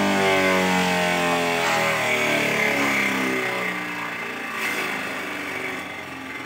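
Homemade grass chopper's cutting blade and its second-hand Sanyo water-pump motor spinning down after being switched off. The steady hum drops in pitch over about four seconds and fades, with a light click about four and a half seconds in.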